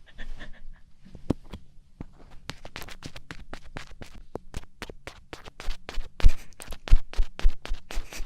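Earpick scratching and tapping in the ear of an ASMR microphone: crisp scrapes and clicks, sparse at first and then coming quickly from about two seconds in, with a few louder, deeper bumps near the end.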